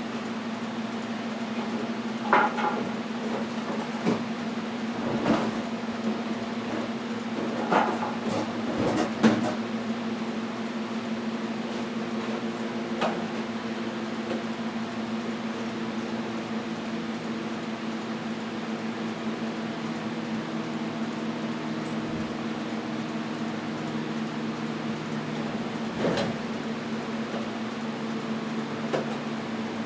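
A steady low hum, overlaid by a handful of scattered knocks and clanks, most of them in the first ten seconds.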